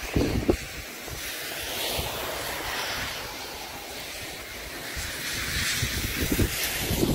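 Ocean surf washing in and out in two swells, with wind buffeting the microphone in low thumps.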